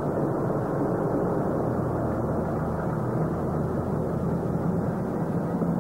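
Diesel locomotive engine running steadily: an even rumble with a low drone.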